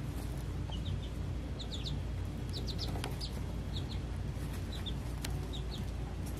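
Baby chick peeping: short, high chirps scattered irregularly, some in quick pairs, over a faint steady low hum.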